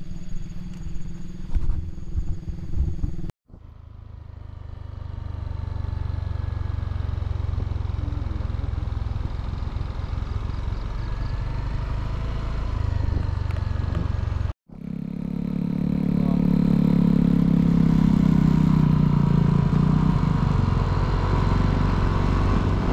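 Motorcycle engine running while riding, with a steady low drone. The sound is cut off abruptly twice, about three and a half and fourteen and a half seconds in, and the last stretch is the loudest.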